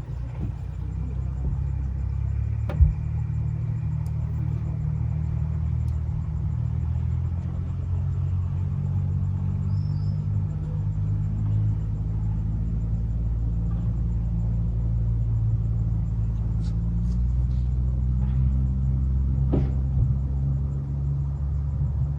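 An engine idling steadily with a low rumble, with a sharp knock about three seconds in and another near the end.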